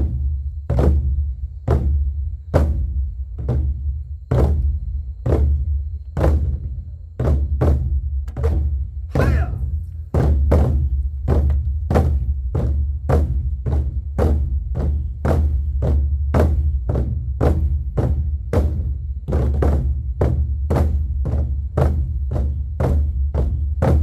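Ensemble of large Korean drums (buk) beating a steady, evenly spaced rhythm of deep, booming strokes, a little under two a second and slightly quicker after about ten seconds. The pattern is meant to evoke charging horses before a battle.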